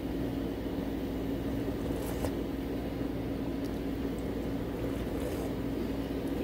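Small Honda generator running with a steady hum and a constant low tone. A couple of faint clicks come about two seconds in.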